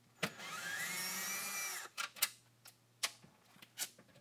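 Cordless drill running for about a second and a half, its whine rising and then holding steady as it backs a screw out of a metal panel, followed by a few sharp clicks and knocks.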